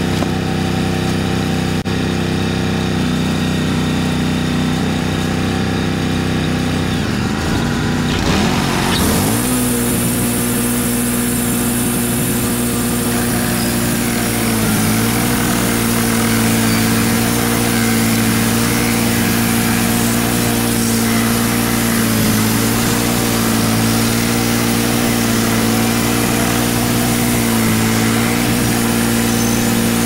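Wood-Mizer LT35 band sawmill running steadily. About eight seconds in, the engine's pitch dips and climbs back, and after that the band blade is cutting through a shagbark hickory log: a steady sawing hiss over the engine, whose pitch sags briefly a few times under the load of the hard wood.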